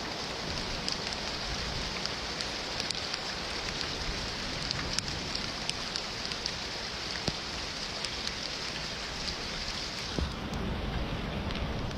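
Steady rain falling, with many separate drops clicking on a surface close by.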